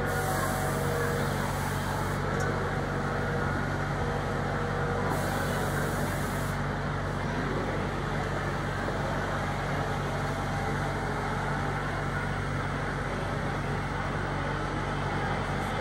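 Model freight train running steadily along the layout's track: a continuous rolling rumble of the cars' wheels on the rails over a low, constant hum.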